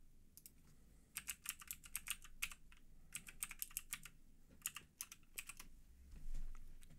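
Computer keyboard typing: three quick bursts of key clicks, faint. A brief low rumble near the end.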